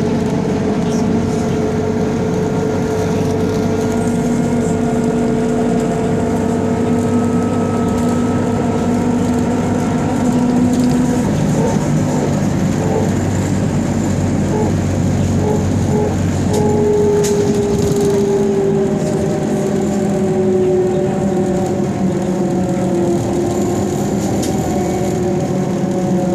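BKM trolleybus running, heard from inside the cabin: the electric traction drive whines in several steady tones over road rumble. The whine breaks off about halfway through, and a new one starts that slowly falls in pitch.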